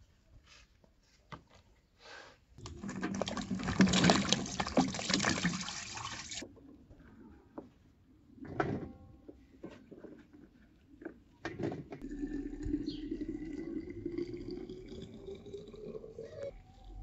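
Water running from a kitchen tap for a few seconds, then shut off sharply; a few knocks and clinks follow. Liquid then pours into a container, its pitch rising steadily as the container fills.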